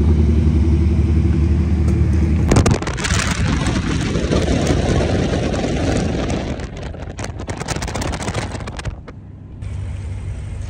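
BMW M3 Competition's S58 twin-turbo straight-six idling with a steady deep hum. About two and a half seconds in it gives way to car engine and road noise at highway speed, which fades down toward the end.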